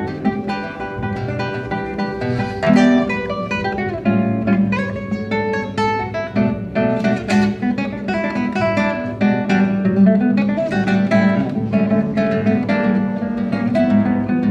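Acoustic guitar playing a piece of plucked single notes and chords, without singing.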